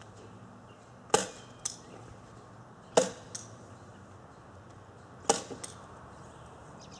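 Three sharp gunshots about two seconds apart, each followed by a fainter crack about half a second later.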